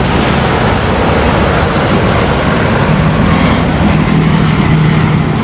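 Loud, steady road traffic noise from vehicles passing on a busy street, with an engine's low drone growing stronger in the second half.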